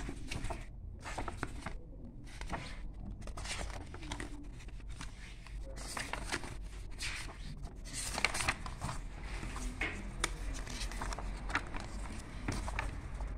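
Paper pages of a printed schematic document rustling and scraping as they are leafed through and turned by hand.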